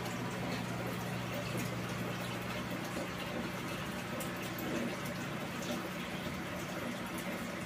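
Aquarium box filter filled with K1 micro media, air bubbling up through it: a steady bubbling with scattered small pops, over a steady low hum.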